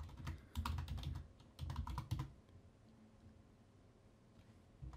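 Computer keyboard typing: quick runs of key presses for the first two seconds or so, then it stops.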